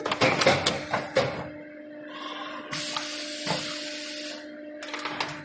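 Busbar automatic assembly machine running over a steady hum. Dense clicking and clattering of mechanical parts comes in the first second or so. A hiss lasting about two seconds follows near the middle.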